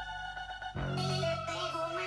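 Electronic pop music played through a portable Bluetooth speaker, held synth notes over a bass line that drops out briefly and comes back about a second in.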